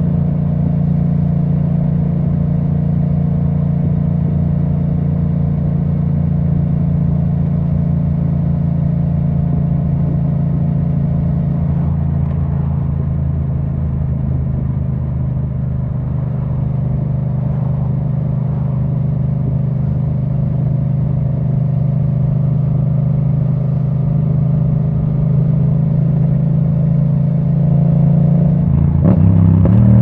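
A 2017 Yamaha MT-07's parallel-twin engine running at steady revs through a custom Akrapovic titanium exhaust with the dB killer removed. The revs rise just before the end.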